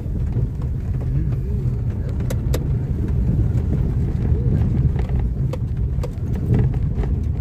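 Car driving over a rough, rutted dirt road, heard from inside the cabin: a steady low rumble of engine and tyres, broken by sharp knocks and rattles as it jolts over bumps, two of them close together a little over two seconds in.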